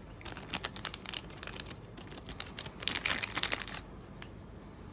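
Packaging crinkling and rustling in irregular bursts as the camera battery is unwrapped, loudest about three seconds in, then stopping.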